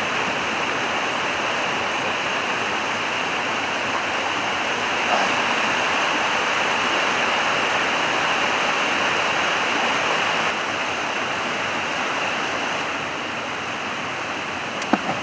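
Steady rush of a shallow, fast river running over boulders, an even water noise throughout, with a short click just before the end.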